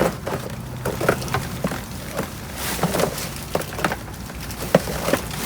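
Rummaging through trash in a dumpster: scattered knocks, clunks and rustling as items are moved about.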